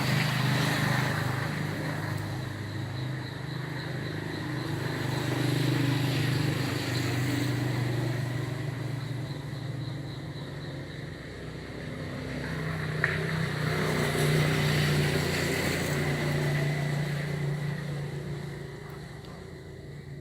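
Low engine hum of a motor vehicle running, swelling and fading twice, with one sharp click past the middle.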